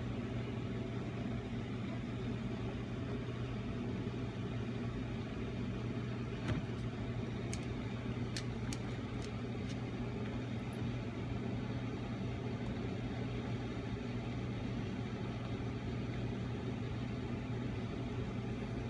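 Steady low mechanical hum, with a few faint sharp clicks between about six and ten seconds in.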